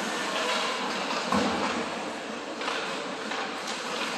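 Ice hockey game sounds in a rink: a steady hiss of play and crowd, with a dull thud about a second and a half in and a couple of fainter knocks later.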